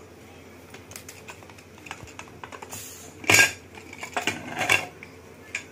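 Metal pressure cooker lid being worked loose and opened by its handles: light clicks and rattles, a loud metallic clank with a short ring about three seconds in, then a few more clinks and scrapes of lid on pot.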